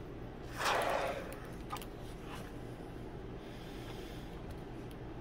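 Can of expanding spray foam hissing briefly through its straw nozzle, once, starting about half a second in. A faint steady low hum lies under it.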